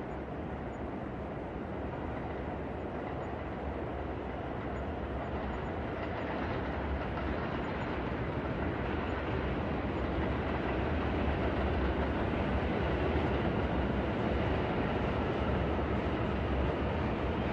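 New York City night ambience from a rooftop: a steady low city rumble that slowly grows louder.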